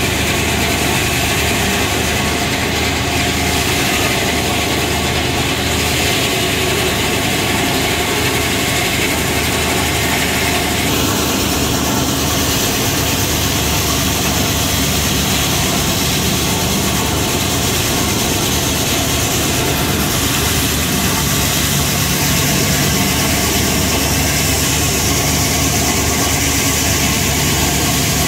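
Circular sawmill running: the big spinning blade and its power unit make a loud, steady machine noise while the carriage feeds an ash log through the saw. The sound shifts a little about halfway through.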